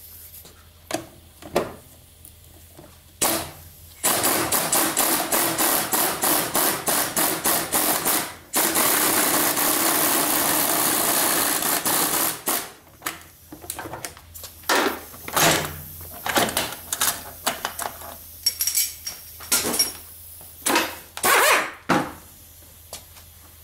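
A power tool rattles in short quick bursts, then runs continuously for a few seconds while gearbox shafts are being taken apart. Scattered sharp metallic knocks and clanks follow as parts are handled.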